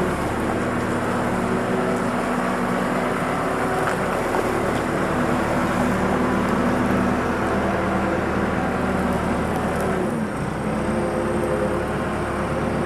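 Forklift engine running steadily; its note changes about ten seconds in.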